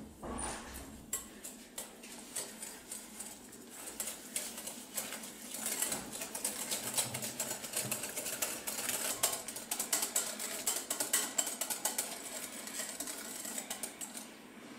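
Wire balloon whisk beating egg yolks and sugar in a glass bowl: a fast, uneven run of clicks and scrapes as the wires strike the glass. It picks up about two seconds in and eases off near the end.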